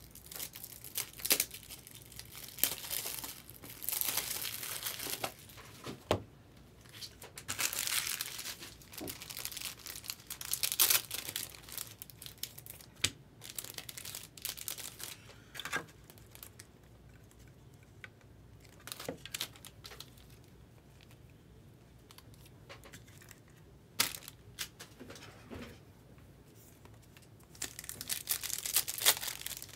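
2021 Bowman Draft Sapphire trading-card pack wrappers being torn open and crinkled, in several bursts with quieter gaps between them, with sharp clicks from the cards and packs being handled.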